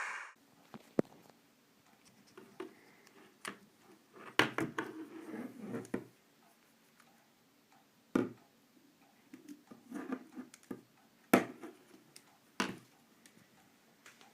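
A mobile phone being handled: irregular clicks and taps of its keys and touch screen being pressed, with quiet gaps between and a few sharper clicks in the second half.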